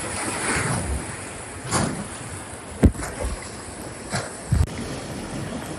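Whitewater river rushing around a raft, with a few sharp knocks or splashes; the loudest comes about three seconds in.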